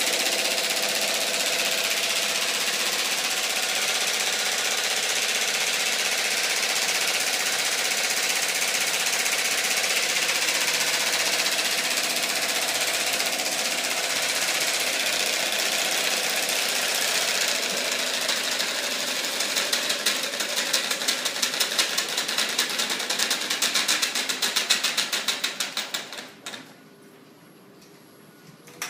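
Flapping-wing mechanism running, its plastic wings beating rapidly with a dense mechanical rattle. In the last third the sound becomes a fast, evenly pulsing beat, then falls away sharply about 26 seconds in.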